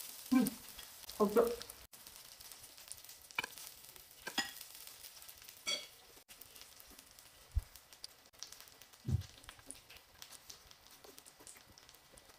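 Food sizzling faintly on a grill pan, under close-up eating sounds: chewing and the crunch of lettuce wraps. There are two short hums near the start and two soft low thuds later on.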